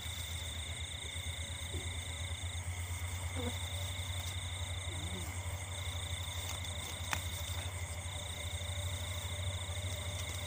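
Night chorus of frogs and insects: a low, rapidly pulsing frog chorus under a steady high insect trill that breaks off briefly every couple of seconds. A single sharp click about seven seconds in.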